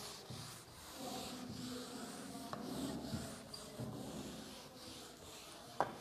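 Whiteboard eraser wiping across a whiteboard in repeated back-and-forth strokes. There is a single sharp knock near the end.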